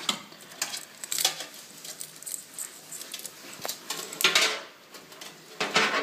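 Power-supply cables being handled and pulled loose inside a metal PC case: several short rustling scrapes and one sharp click about midway.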